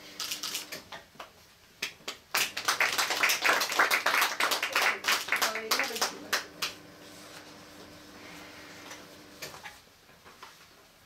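A small audience applauding for about four seconds, starting about two seconds in, with a few scattered claps before and after.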